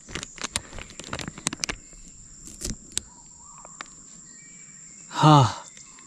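Tropical forest ambience: a steady high-pitched insect tone, with a run of sharp crackles and rustles in the first three seconds. Near the end a man makes a short vocal sound.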